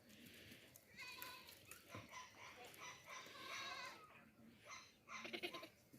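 Baby goats bleating: several high, quavering calls, the loudest about five seconds in.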